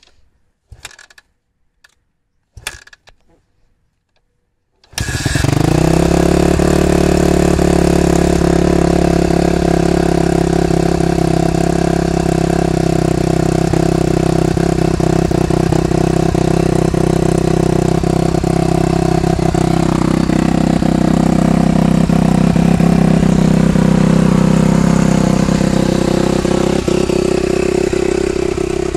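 Suzuki RM-Z250 four-stroke single-cylinder motocross engine with a Pro Circuit exhaust being kick-started. There are a couple of kicks, then it fires about five seconds in. It settles into a steady warm-up idle, and its note shifts slightly about twenty seconds in.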